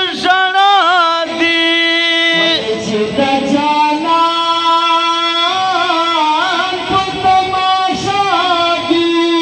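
Unaccompanied male voices singing a Pashto naat (devotional poem), with long held high notes and ornamented pitch bends.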